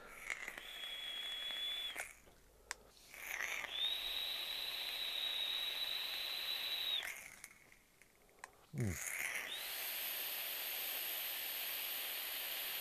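Mouth-to-lung draws through an e-cigarette tank with a 0.3-ohm coil firing at 19 watts: a steady airflow hiss with a high whistle. There is one short draw, then two long ones of three to four seconds each.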